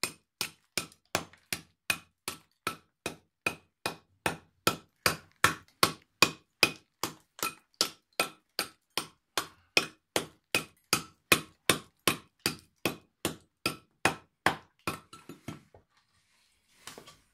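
A small hammer tapping on a slab of Shiro Suita natural whetstone rock to split it, in a steady run of about three strikes a second, each with a short ringing clink. The taps weaken and stop about sixteen seconds in, and a brief rustle follows.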